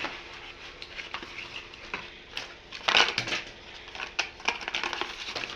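Packaging and plastic being handled: irregular rustling, crackling and sharp clicks, loudest in a cluster about three seconds in.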